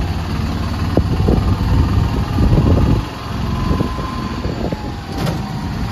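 A motor vehicle running with road noise, a loud uneven low rumble.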